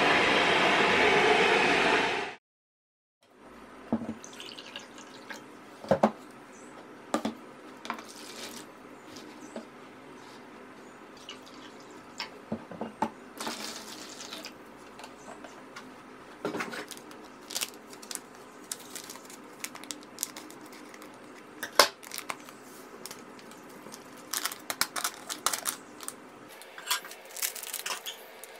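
Water poured from a small plastic measuring cup into a plastic mixing bowl, among scattered clicks and knocks of the cup, bowl and packets being handled. It opens with about two seconds of loud steady noise that cuts off suddenly.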